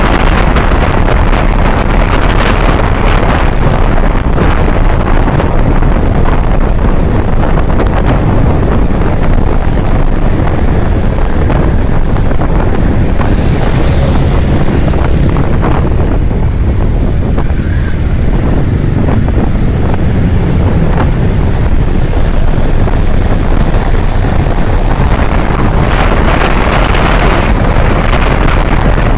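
Wind rushing over the microphone of a moving Kawasaki Ninja 650, with the motorcycle's engine and road noise underneath. The rush eases somewhat in the middle and grows stronger again near the end.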